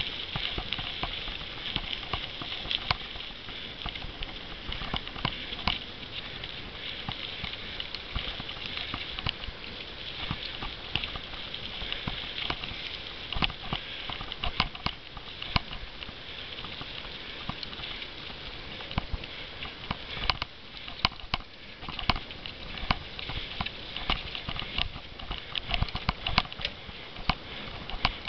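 Cyclo-cross bike ridden over bumpy grass: a steady high hiss with frequent sharp knocks and rattles as the bike jolts over the ground, the knocks coming thicker near the end.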